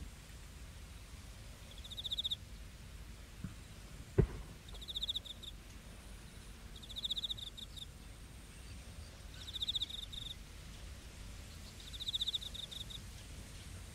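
A cricket chirping: five short high-pitched pulsed chirps a couple of seconds apart, over a low steady background hum of open air. A single sharp knock about four seconds in is the loudest sound.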